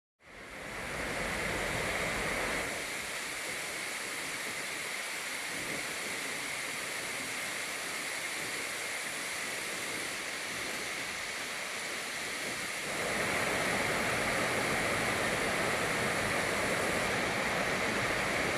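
River rapids rushing over rocks: a steady noise of fast-flowing white water that fades in at the start, drops slightly about three seconds in and grows louder again near the end.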